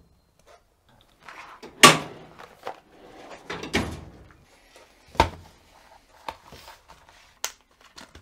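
Aluminium tool chest drawers being opened and shut: a few sharp knocks and thuds, the loudest about two seconds in, with sliding, rattling handling noise between and small clicks near the end.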